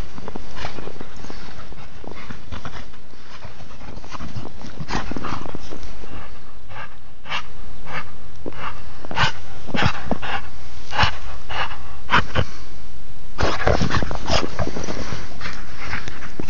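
A Samoyed making short, irregular sounds with its breath and voice as it plays in the snow. The sounds come more often after about five seconds, with a dense cluster near the end.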